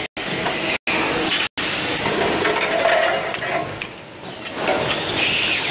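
Automatic brass check valve body machining machine running: steady machining noise with metallic clinking. The sound cuts out completely for a split second a few times in the first two seconds, and dips briefly about four seconds in.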